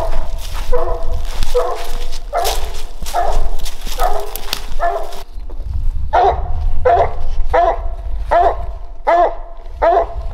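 Redbone coonhound barking treed: short, regular barks a little over one a second. This is the sign that the hound has a raccoon up the tree.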